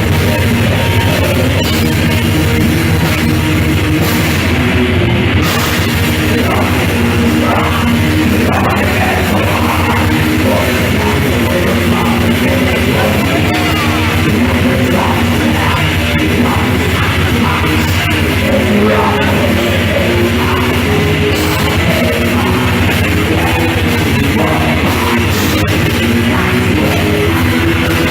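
A metal band playing live, loud and dense, with a drum kit and guitars.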